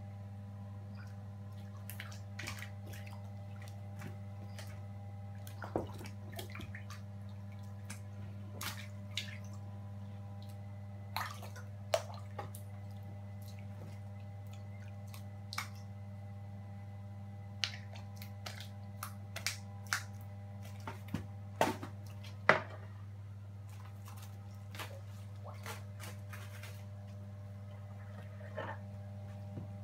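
Scattered drips, splashes and sharp clicks as Cuvier's dwarf caimans seize and handle chicken legs in shallow pool water, the loudest a few quick snaps past the middle. Under it all runs a steady low hum.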